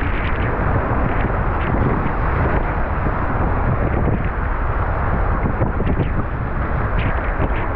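Loud, steady rush of whitewater rapids heard from a kayak in the middle of the wave train, with wind buffeting the microphone.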